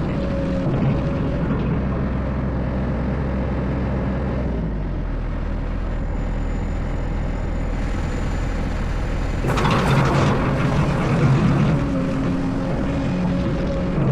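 Excavator diesel engine running steadily under load. About two-thirds of the way through, a louder, noisier stretch of roughly two seconds rises over the engine.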